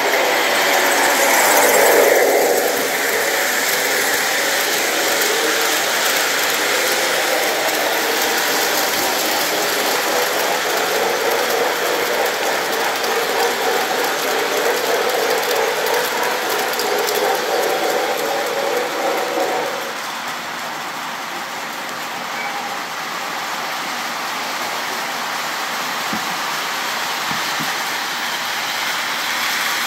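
O scale model freight train running on three-rail track behind a steam-type locomotive: a steady mechanical running sound of motor and wheels, loudest about two seconds in and dropping noticeably about twenty seconds in as the train moves away.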